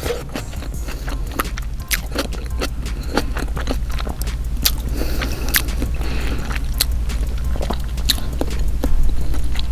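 Close-up mouth sounds of eating an egg topped with onions: wet chewing, lip smacks and many sharp clicks, over a steady low hum.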